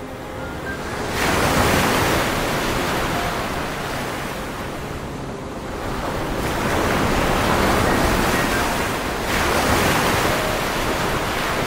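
Ocean surf breaking against rocks: a rushing wash of waves that surges three times, about a second in, around six and a half seconds and around nine seconds.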